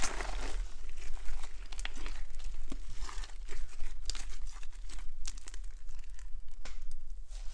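Pink foam-bead slime being kneaded, squeezed and stretched by hand: a dense, irregular crackling and popping as the beads and sticky slime are pressed and pulled apart.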